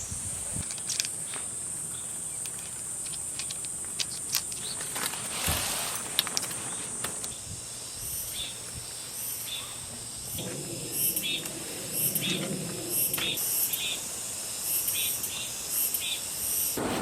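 Steady high-pitched drone of summer insects, with scattered light clicks and knocks over it.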